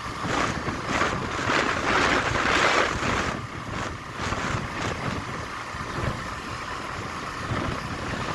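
Wind buffeting the microphone of a vehicle moving along a road, in irregular gusts, over a steady low road-and-engine rumble.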